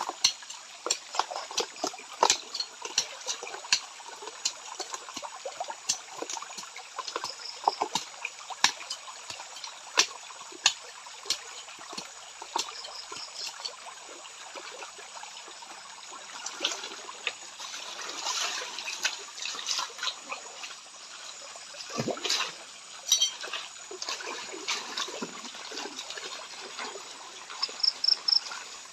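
Water sloshing and splashing in a gold pan worked by hand in a shallow stream, with frequent short sharp splashes and clicks over a steady trickle of running water.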